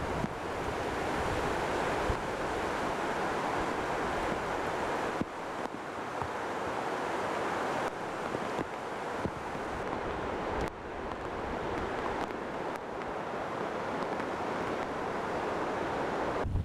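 Hurricane wind blowing hard over choppy, breaking water, with wind buffeting the microphone in a low rumble. The sound changes abruptly about five, eight and eleven seconds in.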